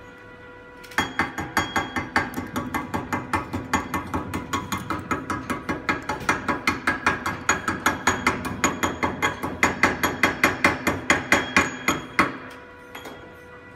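Chipping hammer rapidly tapping slag off a fresh stick-weld bead on a cast iron exhaust manifold, about five sharp metallic taps a second, with the metal ringing under the blows. The tapping starts about a second in and stops shortly before the end.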